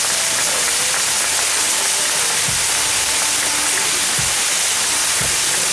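Steady, loud hiss of the many fountain fireworks (gerbs) burning on a spinning Maltese mechanical firework wheel, with a few dull low thumps.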